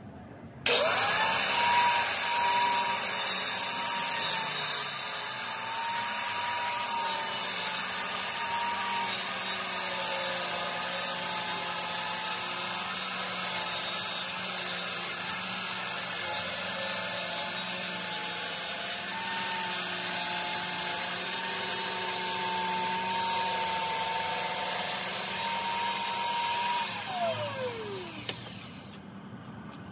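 Plunge track saw starting up and ripping a long cut through half-inch plywood: the motor whine rises about a second in, runs steady under the blade's sawing noise, then winds down with a falling pitch near the end.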